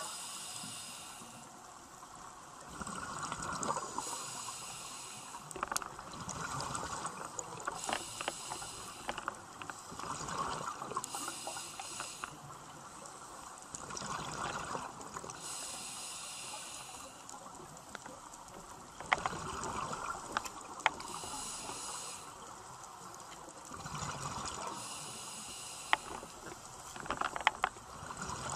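Scuba breathing through a demand regulator: a hissing inhale about every four seconds, each followed by the bubbling of the exhale. Several sharp clicks come in the second half.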